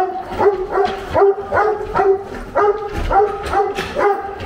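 Sheepdog barking over and over at a steady pace, about three barks a second.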